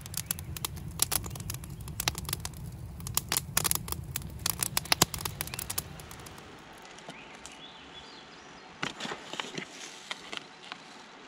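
Wood campfire crackling, with irregular sharp pops over a low, steady flame rumble for about the first six seconds. Then it goes quieter, with a short cluster of light taps and scrapes about nine seconds in.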